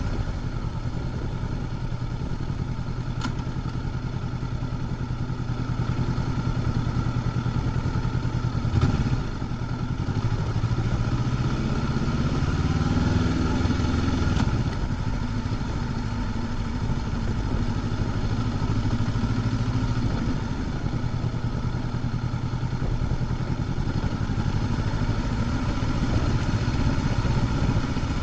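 Honda CB500X parallel-twin engine through its stock exhaust, running steadily at low revs. About a third of the way in there is a short dip, then the engine note rises for a few seconds and drops back near the halfway point before settling again.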